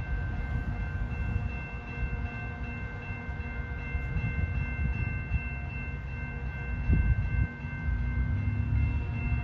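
Horn of an approaching CN freight locomotive sounding a steady chord of several held tones, over a low rumble, with a louder low bump about seven seconds in.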